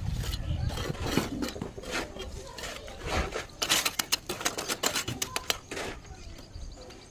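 A run of sharp clinks and scrapes of hard objects, densest a little past halfway, over a low rumble early on.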